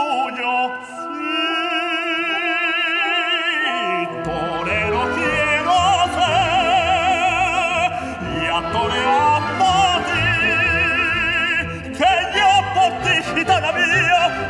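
Soprano and tenor singing an operatic duet with wide vibrato, accompanied by a symphony orchestra. The orchestra's low strings fill in underneath about four seconds in.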